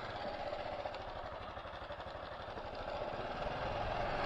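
Honda Super Cub JA07's small air-cooled single-cylinder four-stroke engine running, a fast, even patter of firing pulses under a steady rush of noise.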